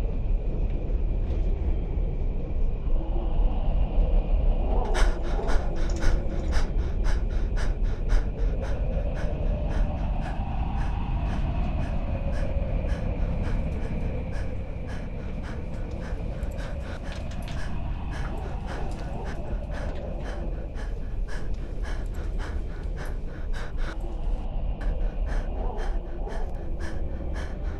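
A man panting and gasping for breath as he comes round, over a steady low rumble, with a rapid run of clicks starting about five seconds in.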